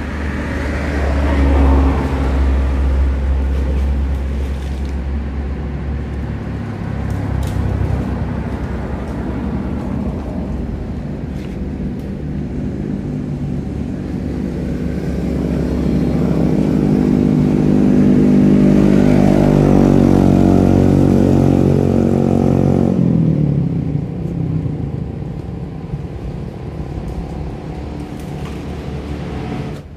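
Motor vehicle engines passing: a deep rumble in the first few seconds, then an engine that grows louder, peaks past the middle and falls in pitch as it fades away.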